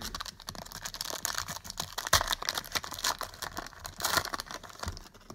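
Packaging crinkling and tearing as a trading-card box or pack is opened by hand, with two louder rips about two and four seconds in.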